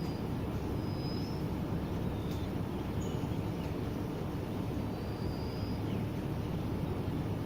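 Steady rain, an even, unbroken wash of noise weighted toward the low end, with a few faint, brief high bird calls over it.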